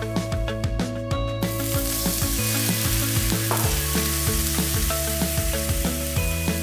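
Water and soy sauce sizzling and bubbling in a hot wok, the hiss setting in about a second and a half in and running on, over background music with a steady beat.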